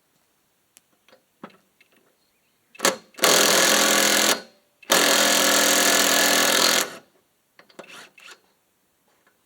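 A handheld power tool run in two short bursts, about a second and then about two seconds long, starting and stopping sharply, with light clicks of handling before and after.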